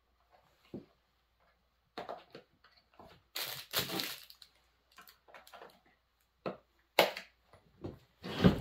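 Plastic top cover of a Proyama chainsaw being handled and pressed onto the saw body: scattered clicks and plastic clatter, a rasping scrape about three and a half seconds in, and a sharp knock near the end. The cover is a poor fit.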